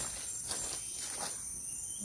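Insects chirring steadily in a high, even tone, with a couple of faint clicks.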